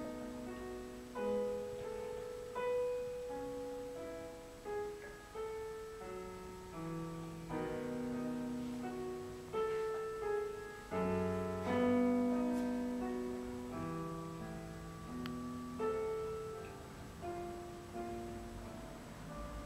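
Slow, calm piano music: single notes and soft chords struck every second or so and left to ring and fade.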